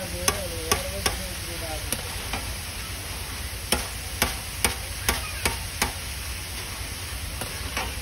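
Potato chips sizzling steadily in a large iron kadai of hot oil. A metal skimmer stirs and lifts them, knocking sharply against the pan about a dozen times, with a quick run of six knocks, about two a second, midway through.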